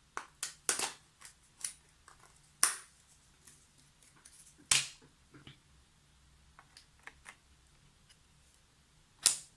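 Sharp plastic-and-metal clicks and snaps of a Kingston 8 GB laptop RAM module being handled and seated in its slot. The loudest snaps come about three, five and nine seconds in.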